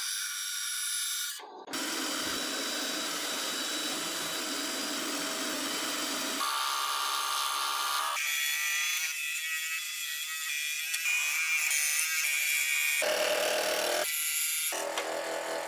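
Electric scroll saw running and cutting through a wooden board, its reciprocating blade's buzz changing abruptly several times as the footage jumps between cuts.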